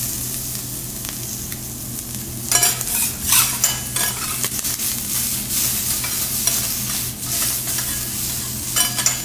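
Pieces of abalone sizzling on a hot teppanyaki steel griddle. About two and a half seconds in, the sizzle grows louder and crackles with quick sharp strokes.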